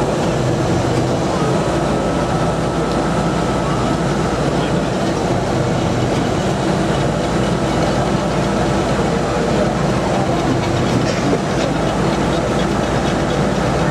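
Multiple tie tamper track machine running steadily at a standstill, a constant engine drone, while its soundproof cover is lowered over the tamping units. A faint thin whine sounds from about a second in for roughly three seconds.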